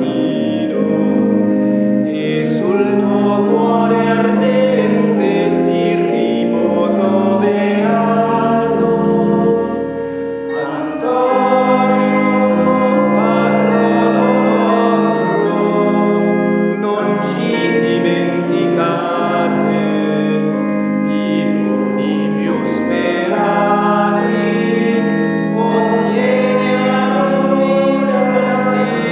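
Church organ accompanying voices singing a hymn, in phrases of held notes with a short break about ten seconds in.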